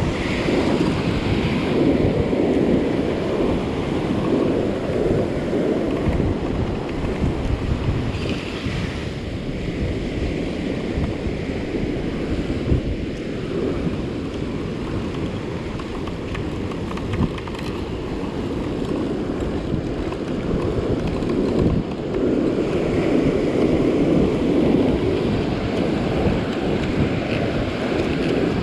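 Ocean surf breaking and washing up the sand, with wind buffeting the microphone. The wash swells louder about a second in, again around eight seconds in, and for a longer stretch from about twenty-two seconds.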